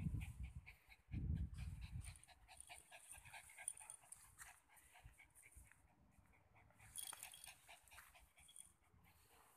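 A white spitz-type dog panting, quick short breaths. In the first two seconds, low rumbling bumps from the phone microphone being handled are louder than the panting.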